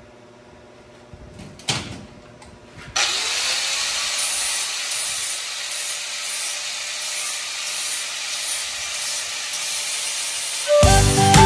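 A few handling knocks, then about three seconds in a handheld angle grinder starts, spinning up with a rising whine, and grinds metal rods clamped in a vise with a steady loud hiss. Music comes in near the end.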